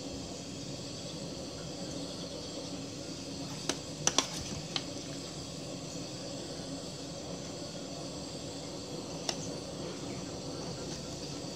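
A metal spoon clicking and tapping against a stainless steel tray as cooked fish is picked off the bone: a few light clicks a little before the middle, a quick cluster of two or three just after, and one more near the end, over a steady faint hiss.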